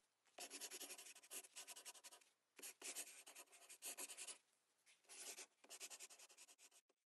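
Faint pen-on-paper scribbling, in three bursts of quick scratchy strokes with short pauses between them, accompanying a handwritten logo being drawn on.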